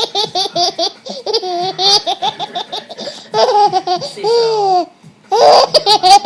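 A young child laughing hard: high-pitched giggles in quick repeated bursts, with a longer falling squeal about four seconds in and a short pause before the laughter starts again.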